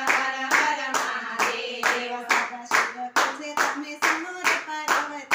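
A group of women singing a devotional bhajan (kirtan) together and clapping their hands in a steady beat, about two claps a second.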